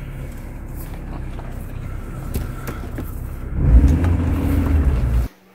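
Car running, heard from inside the cabin: a steady low rumble that grows louder about three and a half seconds in, then cuts off abruptly near the end.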